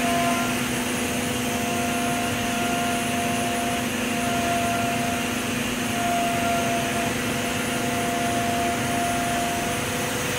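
JETiger high-pressure-coolant-driven turbine spindle running in a Haas VF-3SS mill with high-pressure coolant spraying: a steady, even whine with a few fixed pitches over a hiss.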